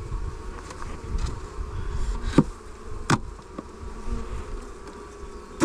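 Swarm of honey bees buzzing steadily around an open hive. A few sharp clicks or knocks come over the hum about two and a half and three seconds in and again near the end.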